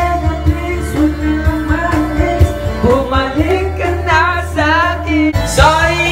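Karaoke: a young man singing into an amplified microphone over a backing track with a steady bass line, his held notes wavering in pitch.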